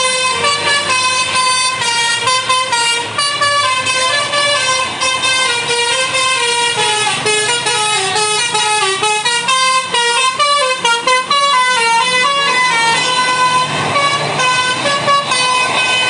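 Tour bus's musical 'basuri' telolet horn playing a continuous fast tune of quick stepping notes. The tune dips lower in the middle and climbs back near the end.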